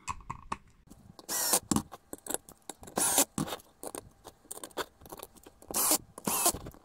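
Small M3 screws and a screwdriver handled on a workbench: scattered light clicks and three short scraping rasps as the screws are set into a 3D-printed plastic slewring plate and one is driven in.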